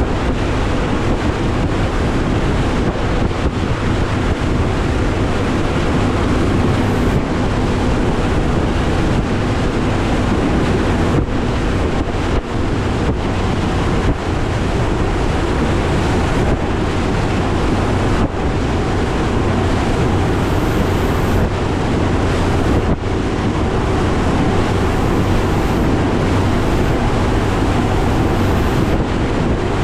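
Strong wind buffeting the microphone and rough water slapping and rushing against a bass boat's hull, with the Mercury Pro XS 200 outboard running steadily underneath.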